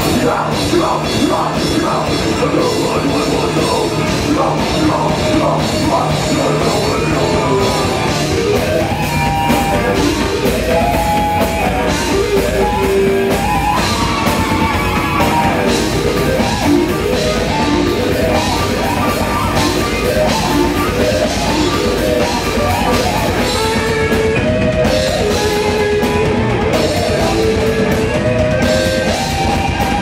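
Live heavy metal band playing loud: electric guitars and bass over dense drumming, the guitar riff stepping up and down in pitch.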